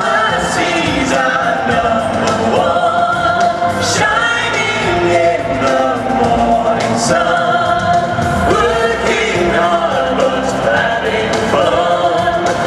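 Music with several voices singing together: a song in a live stage show, heard loudly from the audience.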